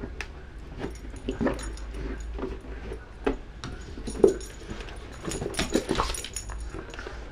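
Pet dog whining and whimpering in a string of short, irregular bursts, the loudest about four seconds in.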